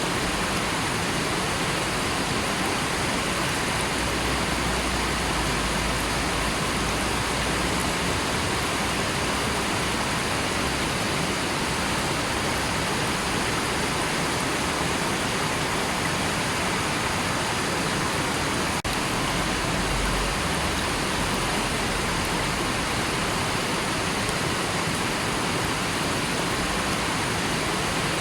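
River water rushing steadily, an even, unbroken wash of sound.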